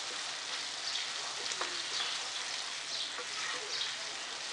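Goat-brain masala sizzling in a nonstick pan: a steady hiss with soft swishes and light scrapes as a wooden spatula stirs it.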